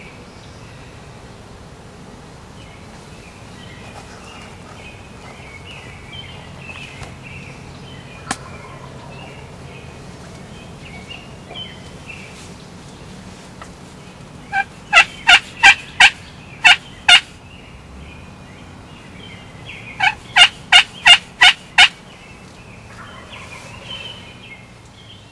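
Turkey calls: two loud runs of about seven short, evenly spaced notes, each run lasting about two and a half seconds, the second coming a few seconds after the first. Small birds chirp faintly in the background.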